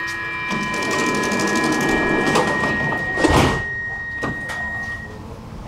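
Metro train door-closing warning: a steady chord of tones sounds as the sliding doors close, ending in a loud rush and thud about three seconds in, followed by two sharp clicks as the doors lock shut. One tone of the chord holds on until about five seconds in.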